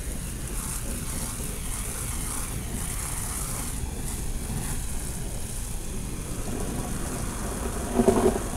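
Outdoor ambience: a steady low rumble with wind buffeting the microphone and a constant high hiss, then a brief louder pitched sound near the end.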